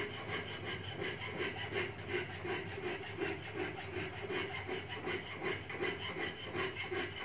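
Flat file rasping back and forth across a deer antler pick handle clamped in a bench vise, in quick, regular strokes, rounding and shaping the antler.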